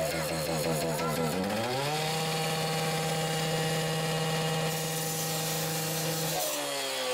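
Handheld petrol power saw running, its engine speed wavering up and down, then revving up about a second and a half in and held at a steady high pitch as it cuts the steel window bars, dropping back near the end.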